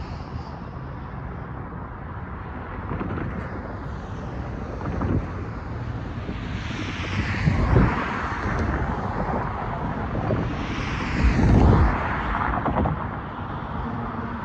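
Road traffic on a multi-lane street: cars passing, the loudest going by close about halfway through and again a few seconds later, over a steady low rumble.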